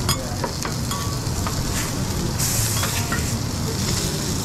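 Chicken and burger buns sizzling on a stainless flat-top griddle, with a few sharp clicks of a metal spatula on the plate in the first second. The sizzle grows louder and hissier for about a second in the middle.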